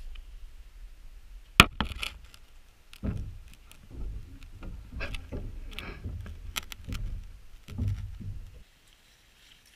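A sharp click, then a run of knocks, rustles and clatters from people moving about on the wooden plank floor of a shelter, close to the camera. The noise stops abruptly near the end.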